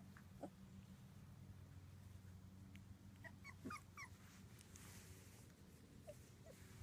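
Two-week-old Labrador puppies giving faint, short squeaks and whimpers. There is a quick cluster of them about three seconds in, and a couple more near the end.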